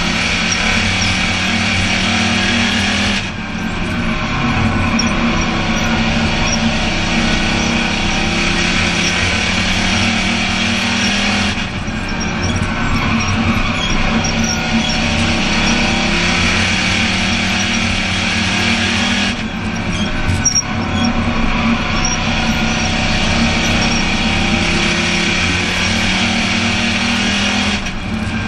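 Race car engine running hard, heard from inside the stripped cockpit, with the note dipping briefly about every eight seconds as the throttle eases for the corners.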